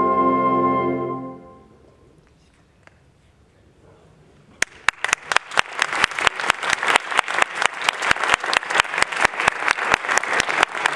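A concert band holds its final sustained chord, which releases and dies away about a second and a half in. After a few seconds of hush, audience applause starts with single claps at about four and a half seconds and grows into steady clapping.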